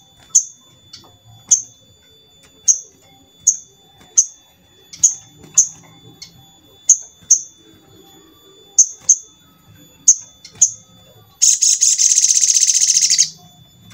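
Male olive-backed sunbird calling with short, sharp high chips every half second or so, then breaking into a loud, rapid trill lasting about two seconds near the end.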